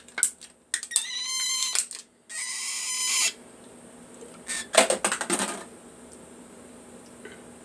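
White-faced cockatiel calling: a wavering, pitched screech, then a harsh hissing squawk, and about a second later a quick run of light clicking taps.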